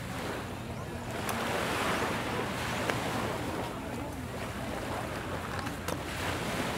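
Surf washing on the shore mixed with wind on the microphone: a steady rushing noise that swells and eases every second or two, with a few faint clicks.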